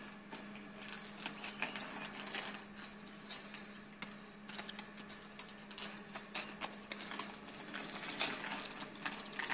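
Inline skate wheels rolling on asphalt, a faint rolling noise with irregular small clicks and clatters. A faint steady hum runs underneath.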